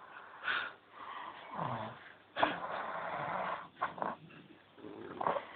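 A sleeping person snoring, several separate noisy snoring breaths, the longest lasting over a second near the middle.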